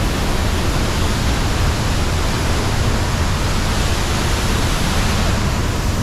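Loud, steady rush of a large waterfall crashing into a churning pool, heard from right beside its base.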